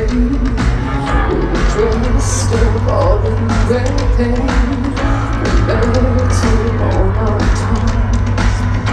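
A woman singing lead with a live rock band, over drums and a heavy, steady bass, amplified through a festival PA and heard from within the audience.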